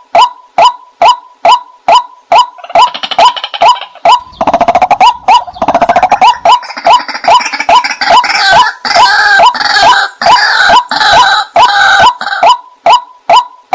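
White-breasted waterhen calling: a steady run of short, repeated notes at a little over two a second. From about two seconds in until near the end, overlapping, rougher calls crowd in around the steady beat, then the plain repeated notes return.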